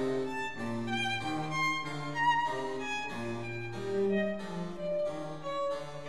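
Instrumental background music: a melody of distinct notes over a bass line that changes note about every half second.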